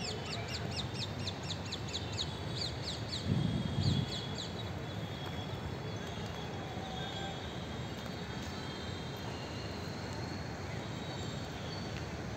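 A bird calling in a rapid run of short, high, falling notes, about four a second, for the first four seconds or so, then scattered chirps over steady background noise. A brief low rumble comes near four seconds in and is the loudest moment.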